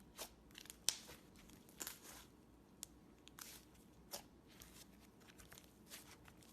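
Slime being handled up close: faint, irregular crackles and soft pops, with a sharper pop about a second in.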